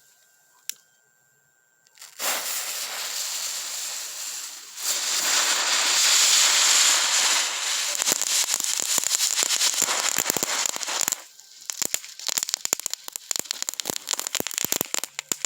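Small novelty tank firework going off: a hissing spray of sparks starts about two seconds in and grows louder a few seconds later, then turns into a run of rapid crackling pops for the last few seconds.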